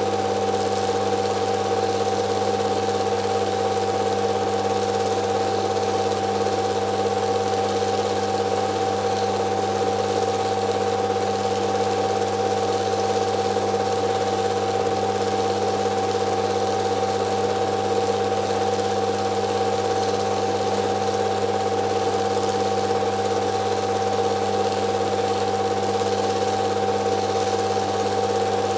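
Film projector running: a steady mechanical hum and whir with several fixed tones over a hiss, unchanging throughout.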